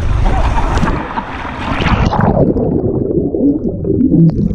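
Water and air rushing loudly past a GoPro on a water-slide ride; about two seconds in the camera goes under water and the sound turns muffled, with low gurgling.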